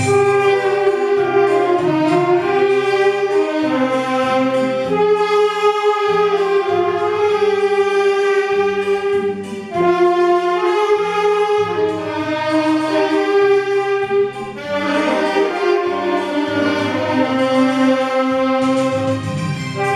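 Beginner saxophone ensemble playing a piece together, a melody of long held notes over a lower accompanying part.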